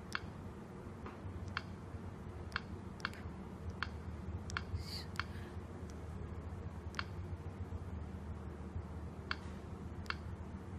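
Stylus tapping keys on the touchscreen keyboard of a Wepoy S92 handheld terminal: about a dozen short, sharp clicks at an uneven typing pace.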